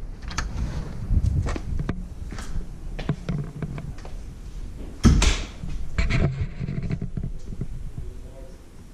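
A series of knocks and bumps, with one loud knock about five seconds in, dying down near the end.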